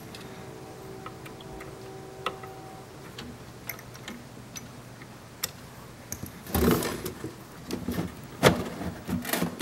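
Small clicks and handling knocks of a hex key and a brass spur gear being worked on the tuning shaft inside a radio receiver's metal chassis. A louder clatter comes about two-thirds of the way in and two sharp knocks near the end. A faint steady hum runs through the first few seconds.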